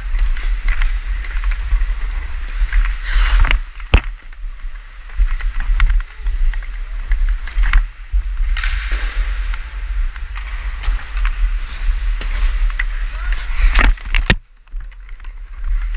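Ice hockey skate blades carving and scraping on the ice, heard from a helmet-mounted camera with a steady deep rumble. Sharp knocks of stick and puck cut through, one about four seconds in and another near the end.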